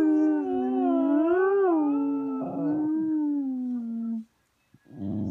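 American cocker spaniel howling: one long, wavering howl that slides slowly down in pitch and breaks off about four seconds in. Another howl starts just before the end.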